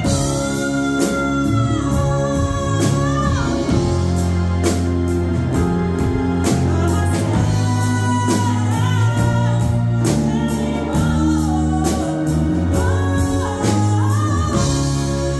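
Live band of drums, bass, electric guitar and keyboards playing a slow power ballad, with a woman singing long, high held notes with vibrato over a steady drum beat.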